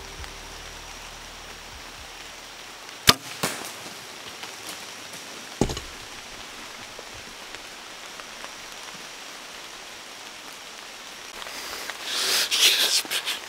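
A bow shot: a sharp, loud snap about three seconds in, a smaller crack a fraction of a second later, and another sharp crack about two seconds after that. Near the end, a burst of close rustling.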